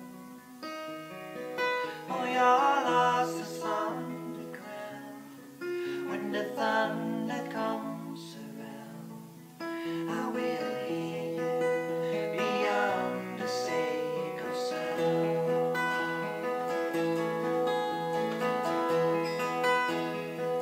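Two acoustic guitars played together with two male voices singing, live and unamplified. The playing and singing grow noticeably louder about ten seconds in.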